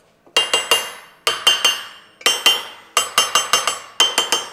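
Steel ram mount, a pipe welded to a base plate, rocking and clinking against a thick steel plate as it is pressed down to check that it sits flush. Ringing metallic knocks come in quick clusters of two to four, about once a second.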